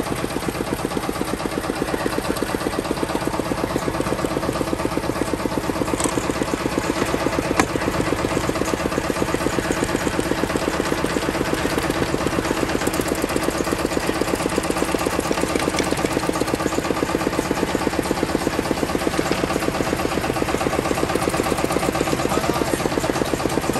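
Kubota KNDR90 single-cylinder diesel engine running steadily at idle with an even chugging beat, with one sharp click about seven and a half seconds in.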